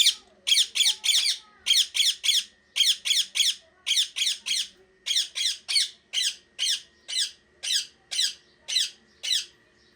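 Parrot squawking over and over in harsh calls. At first they come in quick runs of three, then as single calls about two a second.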